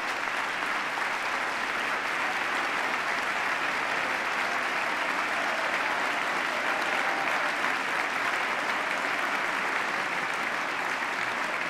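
A large crowd applauding, many people clapping at once in a steady ovation.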